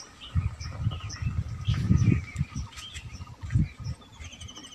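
Birds chirping, with a short trill near the end. Several low rumbles sound underneath, the loudest about two seconds in.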